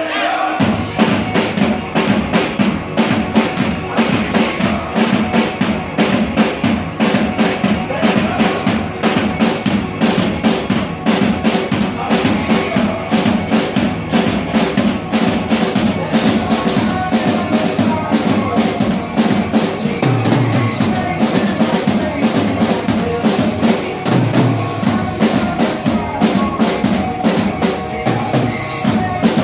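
Drum kit played to a steady, fast beat, with bass drum, snare and rimshots, along with a recorded pop song.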